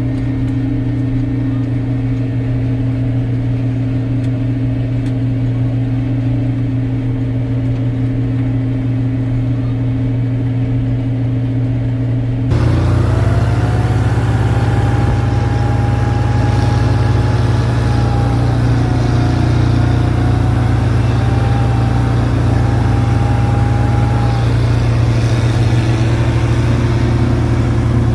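The John Deere 4995 self-propelled windrower is cutting hay, its diesel engine and disc header running steadily, heard from inside the cab. About halfway through, the sound changes abruptly to a louder, denser machine noise with a wavering whine.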